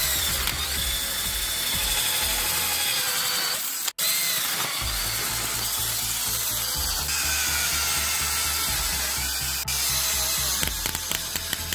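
Cordless drill spinning an abrasive attachment against a steel hammer head, scouring off rust in a dense, steady scraping. It cuts out abruptly for a split second about four seconds in, then carries on. Background music with a steady beat runs underneath.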